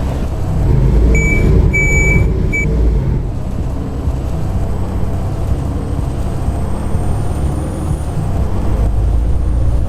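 Volvo B7TL double-decker bus's diesel engine running under the floor, with the high "hoover" whine of this bus slowly rising in pitch as it pulls along. A short run of electronic beeps sounds about a second in.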